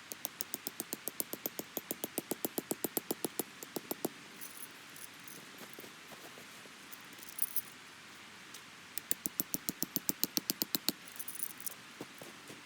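Two runs of rapid, evenly spaced clicks, about seven a second: the first lasts about four seconds, the second about two seconds, starting about nine seconds in. A short rustle falls between them.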